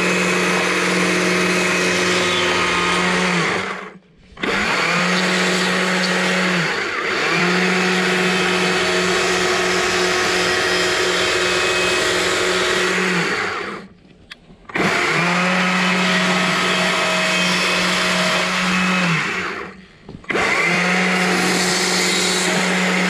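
Stihl carving chainsaw running at high revs while cutting wood, trimming bark and roughing out a tail on a small log. It runs in four long bursts with short breaks between them.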